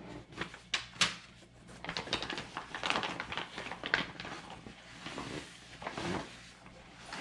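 Paper and plastic packaging rustling and crinkling as an instruction sheet and plastic-wrapped car window deflectors are handled, with scattered clicks and knocks against a cardboard box; the sharpest knock comes about a second in.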